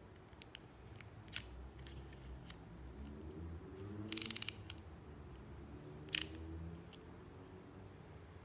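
Small plastic clicks and handling noise from a clip-on headphone earpiece being turned and worked in the hands. A quick run of about eight ratchet-like clicks comes about four seconds in, with single sharp clicks before and after it.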